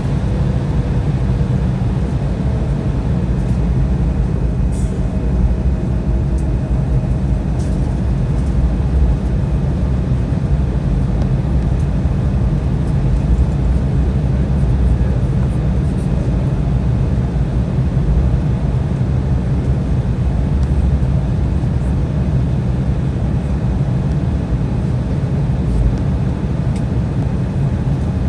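Cabin noise inside an Embraer 175 on the ground after landing: a steady, loud low rumble from the airframe and the idling turbofans, with a few faint clicks.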